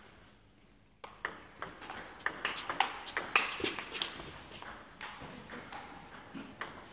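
Table tennis rally: the ball clicks sharply and irregularly off the bats and the table, starting about a second in and thinning out in the second half.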